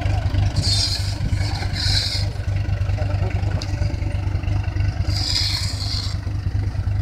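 A tractor engine running steadily at low revs, with three short scraping hisses as shovels scoop compost from the trailer bed, near the start, about two seconds in, and between five and six seconds.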